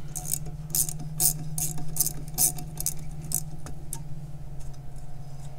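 Ratcheting wrench clicking in short metallic bursts, about two or three a second, as it backs out a nut; the clicking stops about three and a half seconds in. A steady low hum runs underneath.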